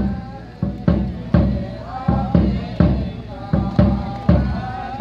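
Frame drums beating a steady rhythm of about two strokes a second, with a voice singing a wavering melody over them: the music that accompanies a kuntul dance.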